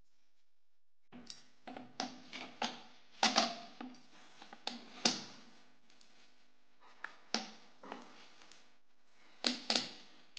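Rolling pin working a sticky peanut chikki mixture on a round rolling board (polpat), giving irregular sharp clacks and knocks with a short ring. The knocks come in bunches, several a second, with quieter gaps between. The first second is almost silent.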